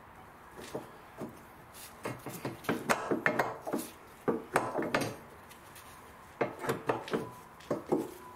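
Curved front lower control arm of an Audi A4 being wiggled and pushed out of its mounts by hand, giving clusters of short metallic knocks and scrapes, one run of them a couple of seconds in and another after a short pause.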